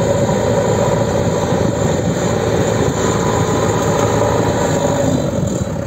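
Backhoe loader's diesel engine running steadily under load as it pushes a heap of sand with its front bucket: a loud, even drone with no breaks.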